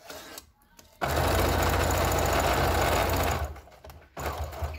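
Electric household sewing machine stitching bias binding onto a clear plastic pocket. It starts about a second in, runs steadily for a little over two seconds, stops, then runs again briefly near the end.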